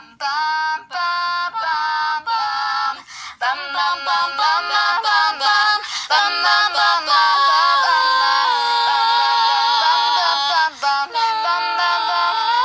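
Synthesized singing voice played from a phone music app: a female-sounding voice sings a melody in steady, stepped notes. The notes are short and broken for the first three seconds or so, then become longer and held.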